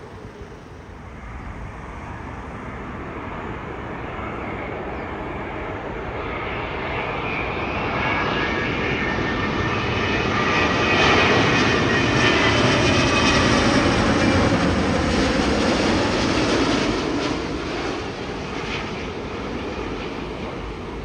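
Jet airliner on final approach passing low overhead: the engine noise builds, peaks about halfway through with a whining fan tone, then fades.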